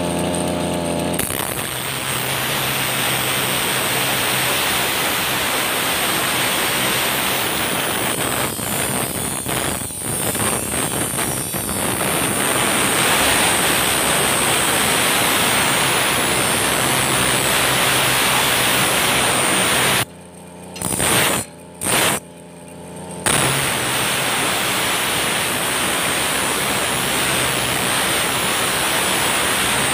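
Steel brush cutter blade being sharpened against an abrasive grinding disc driven by a running brush cutter engine: a loud, steady grinding over the engine's drone. The grinding starts about a second in, and about two-thirds of the way through it drops away for about three seconds, with two short bursts, before resuming.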